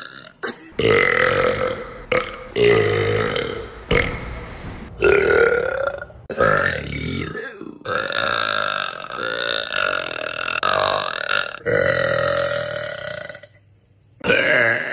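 A series of deliberate human burps, one after another, each a second or two long. The longest is drawn out for almost four seconds about halfway through.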